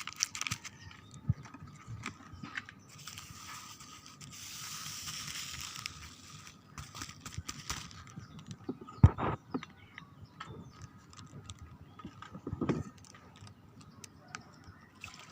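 Small clicks, knocks and scrapes of utensils and containers being handled while drinks are prepared. A short hiss comes about four seconds in, and a sharp knock about nine seconds in.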